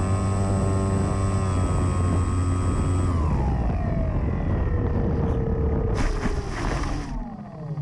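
Radio-controlled motor glider's nose motor and propeller whining, heard on board with airflow rushing over the airframe: the whine holds steady for about three seconds, then winds down. About six seconds in the glider touches down in grass with a brief scraping rustle, and the whine dies away.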